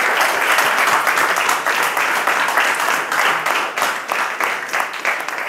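Audience applauding, many hands clapping in a dense patter that eases slightly near the end.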